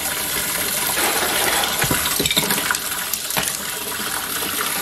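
Cold tap water pouring hard into a pot of foamy water around a freshly boiled crab, a steady rushing splash that cools the crab so it stops cooking. A few light knocks sound about midway.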